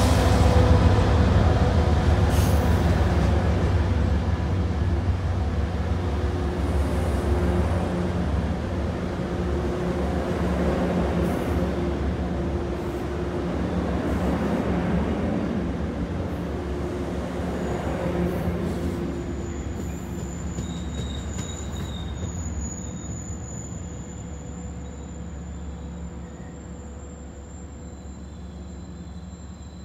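MBTA commuter-rail train of bilevel coaches rolling past and away, its wheels rumbling on the rails, fading steadily as the last cars go by. A faint thin high tone comes in a little past halfway.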